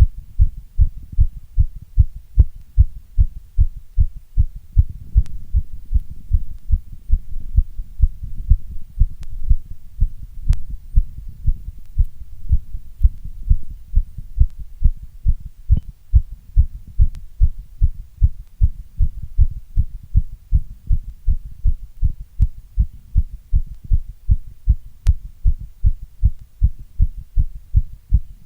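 Strong heartbeat: a steady, even rhythm of loud, low thumps.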